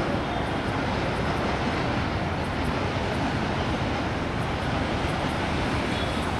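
Steady rumble of a long container freight train rolling away along the track, its rear brake van receding, with faint high ticks over the top.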